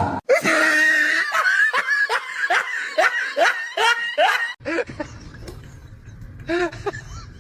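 A person laughing hard in a quick run of falling 'ha' bursts, about two a second, which fades after about four and a half seconds into quieter giggles over a low rumble.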